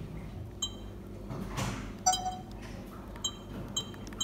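Sony HDR-CX405 Handycam's touch-screen operation beeps: several short, high electronic beeps as menu items are tapped. There is a soft brushing of the hand against the camera about a second and a half in.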